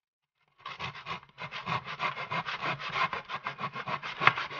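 Hand saw cutting thin wooden trim in a plastic miter box. A few strokes are followed by a brief pause, then quick, even back-and-forth strokes, with one louder stroke near the end.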